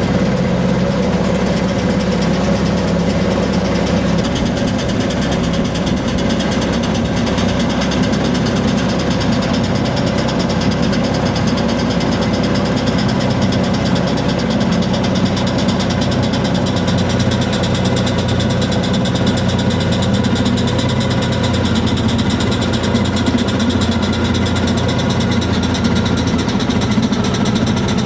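#10 Hasbrouck 2 hp steam engine running steadily, with a fast, even beat of strokes.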